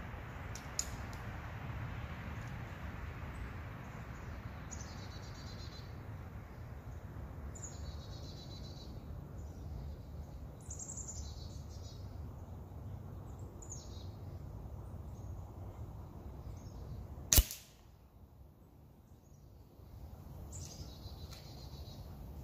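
A single sharp crack of a Weihrauch HW 97 underlever spring-piston air rifle firing, heard from the target end about 27 yards downrange, about three-quarters of the way in; the shot clips the head off a Q-tip. Birds chirp at intervals around it.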